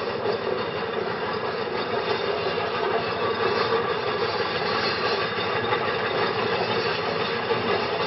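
Aveling & Porter compound steam road roller running steadily, an even mechanical sound with no breaks.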